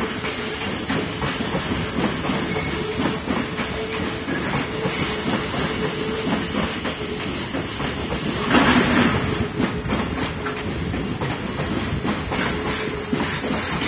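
Container freight train running on the rails, a steady rumble with the clatter of wheels over rail joints, swelling to a louder rush of noise about eight and a half seconds in.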